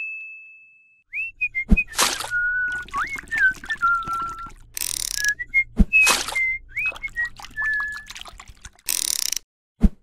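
A ding rings and fades over the first second. Then comes a whistled tune of sliding and held notes, with three sharp thumps about four seconds apart and two short hissing whooshes.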